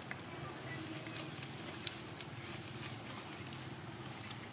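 A few short, sharp crackles of dry leaves as macaques move over and handle them, over a steady low background hum.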